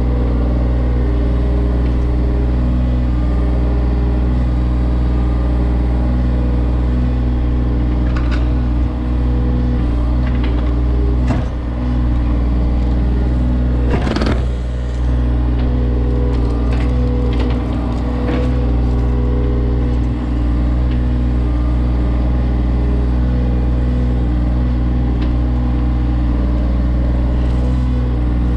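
John Deere 35G mini excavator's diesel engine running steadily under work, with scattered knocks and clanks from the machine as it digs. One louder crash or scrape about halfway through.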